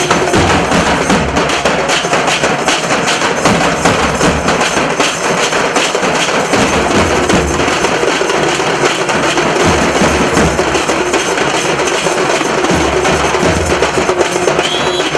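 Nasik dhol drum ensemble playing loud, continuous drumming with rapid strikes.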